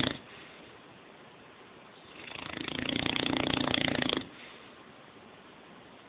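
English Mastiff snoring in its sleep: one long snore that swells over about two seconds and cuts off sharply, with quiet breathing between it, the end of the previous snore right at the start, and the next beginning near the end.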